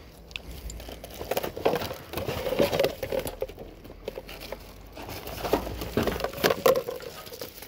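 Rummaging through rubbish in a bin: rustling and crinkling of bags and packaging with small knocks and clicks, in two busy spells.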